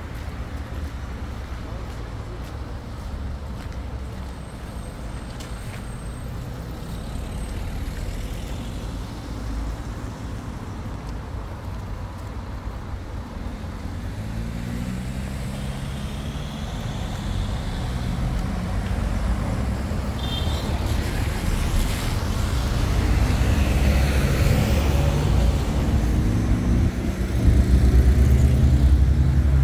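A motor vehicle's engine running with a low rumble. Its pitch shifts as it revs from about halfway through, and it grows steadily louder, most of all near the end.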